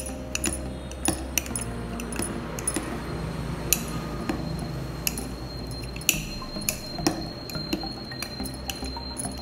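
A spoon stirring chopped fruit coated in sweetened condensed milk inside a glass mug, clinking and tapping against the glass in quick, irregular strokes.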